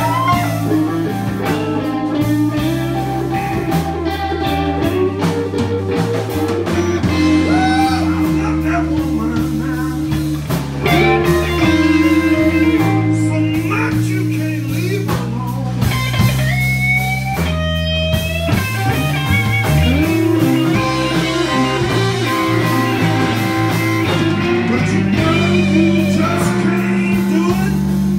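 Live blues band playing a slow blues tune: electric guitar with bending notes over bass and drums, with vocals.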